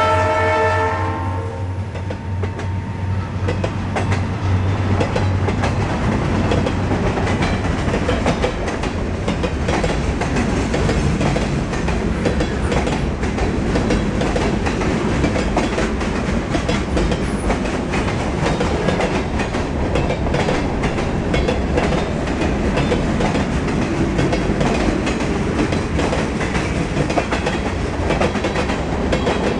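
Freight train of boxcars, tank cars and container flatcars rolling past close by: a steady rumble with wheels clicking over rail joints. A locomotive horn fades out about a second in.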